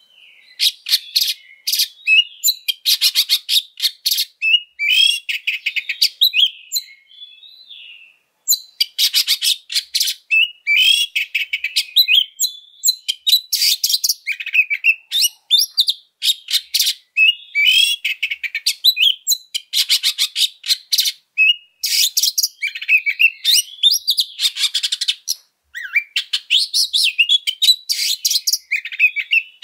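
Male oriental magpie-robin singing loudly and without letup: rapid, varied phrases of chattering, trilled and whistled notes, full of mimicked phrases, broken by short pauses.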